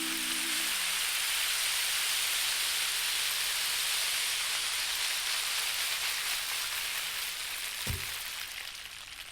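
Steady hiss of heavy rain that fades out over the last couple of seconds, with one short dull thump about eight seconds in. A held sung chord dies away in the first second.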